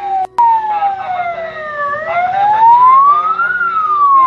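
Siren wailing in a slow sweep, falling in pitch, rising again over about a second and a half, then starting to fall. The sound drops out briefly with a click just after the start.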